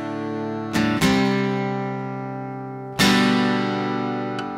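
Background music: a strummed acoustic guitar, its chords ringing out and slowly fading, struck afresh about a second in and again near three seconds.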